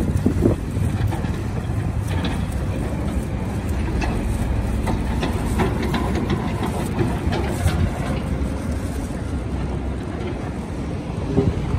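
Hydraulic excavators working a demolition site: a steady low engine rumble, with scattered clanks of buckets and tracks on rubble.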